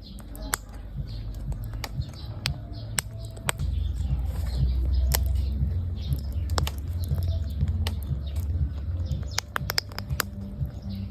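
Eclectus parrot cracking guava seeds with its beak: sharp, irregular clicks and cracks, with bird chirps and a low rumble underneath.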